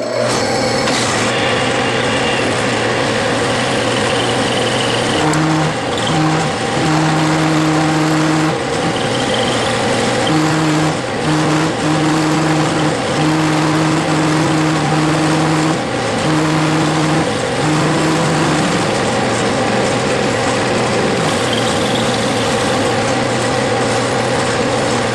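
Metal lathe turning a 5/8-inch bar while a radius forming tool cuts its end: a steady machining noise, with a low hum of tool chatter that comes and goes in short stretches from about five seconds in until nearly twenty seconds in. A lot of chatter is usual with this type of forming tool.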